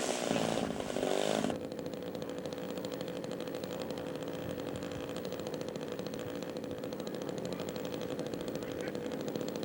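A radio-control scale model airplane's engine running loud and high for about the first second and a half. It then drops abruptly to a quieter, steady drone as the model taxis out.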